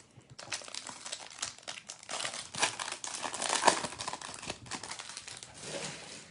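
Foil wrapper of a Topps Chrome trading-card pack being torn open and crinkled by hand: a dense run of crackles that starts about half a second in and tails off near the end.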